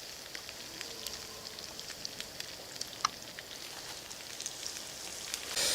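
Faint sizzling and crackling of meat cooking over a campfire, with scattered small pops.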